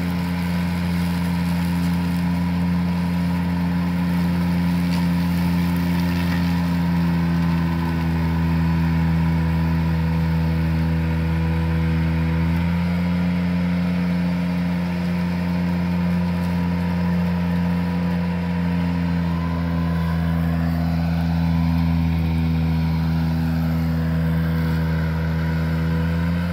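Ventrac compact tractor with a rough-cut mower running steadily as it mows a steep, overgrown slope, a constant engine hum with a small shift in the engine note about halfway through.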